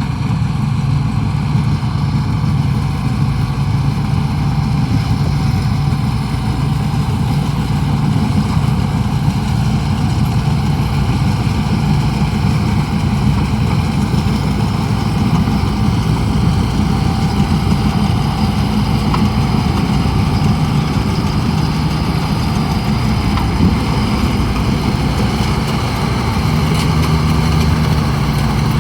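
Engine of a harvesting machine running steadily at a constant speed.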